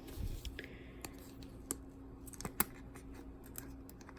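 Scattered light clicks and taps of sports cards in rigid plastic toploaders being handled and set down, the sharpest about two and a half seconds in, over a faint steady hum.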